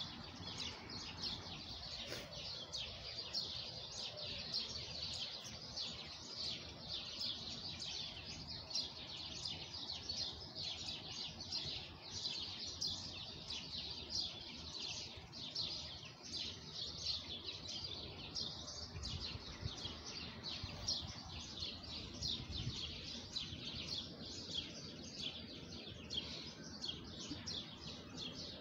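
Many birds chirping at once: a dense, steady run of short, high calls.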